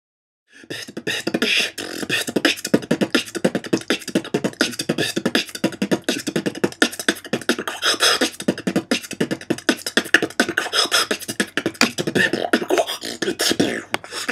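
A single beatboxer performing a beat at very high speed, a dense rapid stream of mouth-made drum hits. It starts about half a second in.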